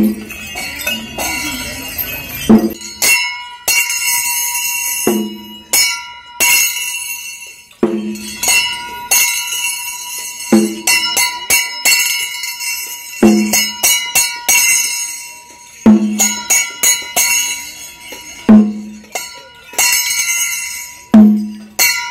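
Bells ringing and jingling in a steady repeating rhythm: a low thud followed by a burst of bright ringing, about every two and a half seconds.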